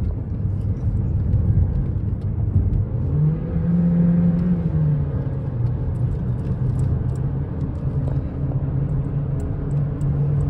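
Cabin sound of a 2013 Chevy Cruze's 1.4-litre turbo four-cylinder accelerating on the road: a steady engine drone that climbs in pitch about three seconds in and settles again about two seconds later. The car is accelerating with its misfire and turbo-underboost fault, which is traced to a bad catalytic converter.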